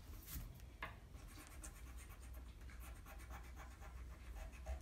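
Pencil eraser rubbing back and forth on paper, faint scratchy strokes repeated in quick succession, rubbing out pencil lines.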